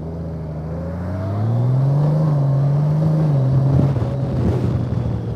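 Motorcycle engine under way, pulling harder: its pitch rises about a second in, holds, then drops a step about halfway through, over steady road and wind noise.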